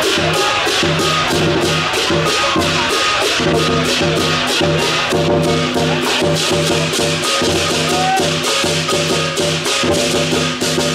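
Lion dance percussion: a large drum beaten in a fast, steady rhythm, about four strikes a second, with cymbals clashing along.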